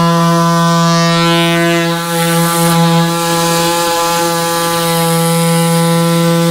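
Small pneumatic air saw running steadily at full speed, a loud, even buzz, as it cuts through the truck's front bumper valance. The pitch dips briefly about two seconds in.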